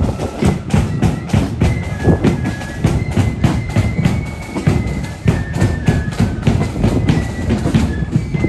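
Marching band playing a march: drums keep a steady beat under a high melody line.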